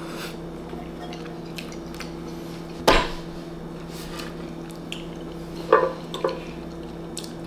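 Chopsticks and a wooden spoon clicking against ceramic bowls and small side dishes during a meal, with one sharp loud click about three seconds in and a short ringing clink near the six-second mark, over a steady low hum.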